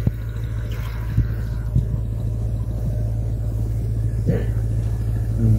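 An engine running steadily, a constant low drone, with two short knocks a little over a second in and near two seconds in.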